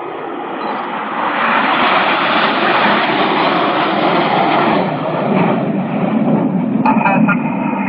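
Formation of Red Arrows BAE Systems Hawk T1 jets, each with a Rolls-Royce Adour turbofan, flying past. The jet noise swells about a second in and stays loud.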